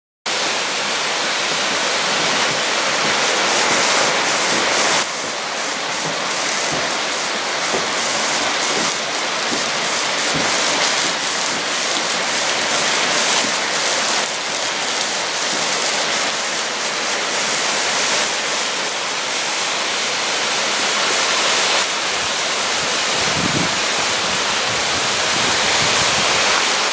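Water pouring off a wooden mill flume and splashing onto the rocks and gravel below: a steady rush of falling water.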